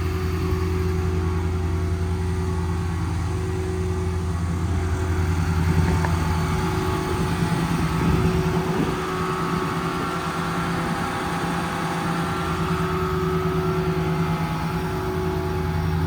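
Ford 6.7 L Power Stroke V8 diesel running with its hydraulically driven screw air compressor switched on: a steady, quiet mechanical hum. The low engine note shifts in the middle and settles back near the end.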